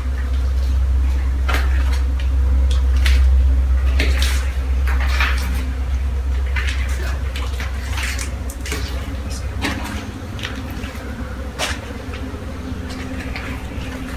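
Footsteps and scuffs on concrete stairs and floor, with scattered knocks, over a steady low rumble on the microphone that is strongest in the first few seconds.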